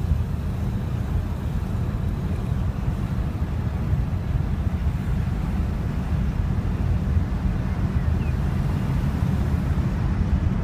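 Wind blowing in through the open windows of a moving 1949 Buick Roadmaster sedan, over a steady low road rumble inside the cabin.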